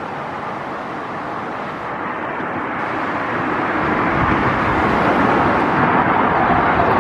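Road traffic noise: a steady rush of tyres and engines that grows louder from about two seconds in, as a vehicle comes closer.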